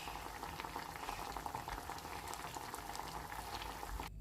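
Water with an onion in it bubbling at a steady boil in a small saucepan, being boiled down, a continuous crackle of fine bubbles that cuts off abruptly just before the end.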